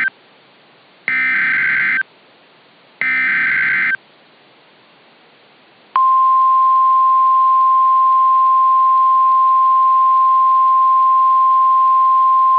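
Two one-second bursts of Emergency Alert System SAME header data, about a second and three seconds in, with a faint hiss between them. They encode a mock Civil Danger Warning. About six seconds in, the NOAA Weather Radio 1050 Hz warning alarm tone starts: one steady, high, unbroken tone that alerts receivers to the coming message.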